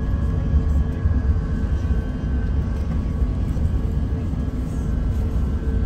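Steady low rumble of Airbus A380 cabin noise from its Rolls-Royce Trent 900 engines and airflow, with a few faint steady engine tones above it.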